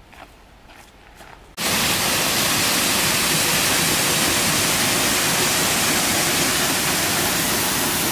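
Faint footsteps on a leaf-strewn path, then, about a second and a half in, the loud steady rush of water falling over a stone dam spillway into a rocky stream.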